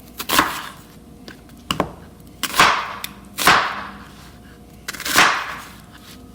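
Kitchen knife cutting through onion and striking the cutting board, about five separate cuts at an uneven pace, each a sharp sound that dies away within about half a second.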